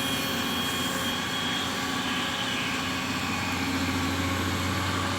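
Diesel engine of a Komatsu amphibious excavator running steadily, with a constant low hum and unchanging pitch.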